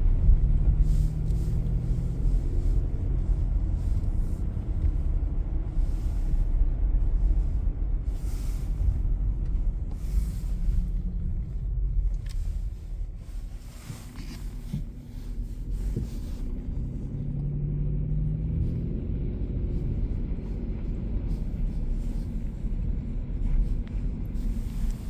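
Car driving: a steady low rumble of engine and road noise. An engine hum swells near the start and again about two-thirds of the way through, with a quieter stretch around the middle.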